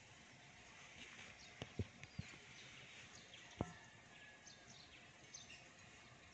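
Quiet residential street ambience with faint, brief bird chirps and a handful of sharp clicks in the first few seconds.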